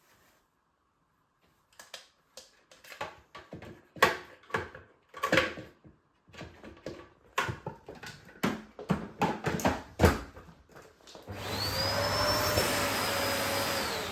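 A series of irregular clicks and knocks, then about three seconds before the end a bagless vacuum cleaner switches on, its motor whine rising quickly and then holding steady under a loud rush of air.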